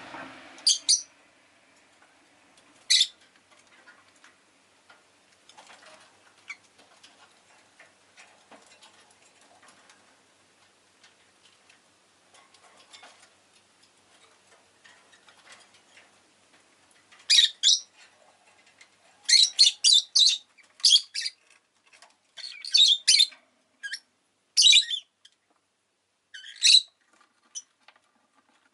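Rosy-faced lovebird giving short, high-pitched chirps: two single chirps in the first few seconds, a quiet stretch, then a quick run of chirps through the last ten seconds or so.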